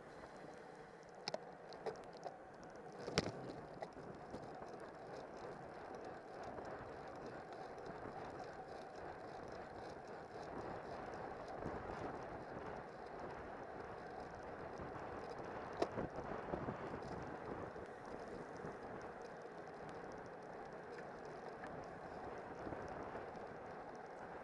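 Steady rush of wind and tyre noise from a road racing bike riding fast in a bunch of cyclists. A few sharp clicks from the bike come through, the loudest about three seconds in and another near the sixteen-second mark.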